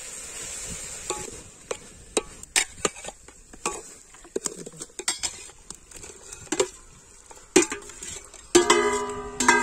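Steel spatula clinking and scraping against an aluminium cooking pot while stirring, then raw pork pieces tipped in from a steel bowl. Near the end comes a ringing metallic tone.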